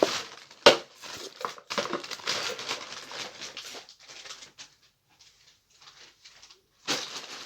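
Rustling and crinkling of a plastic bag and things being handled, with two sharp knocks at the start. The rustling thins out to scattered faint sounds about halfway through, then comes again in a short burst near the end.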